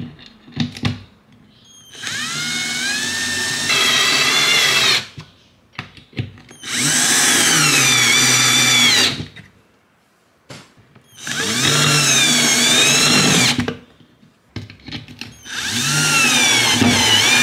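Cordless drill-driver driving the screws of a camera wall bracket, in four separate runs of a few seconds each. The motor's pitch rises as each run starts and then wavers as the screw bites. There are short clicks between the runs.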